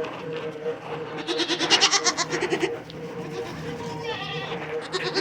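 Dairy goats bleating, with one long pulsing bleat about a second in and a shorter one near the end, over a steady hum.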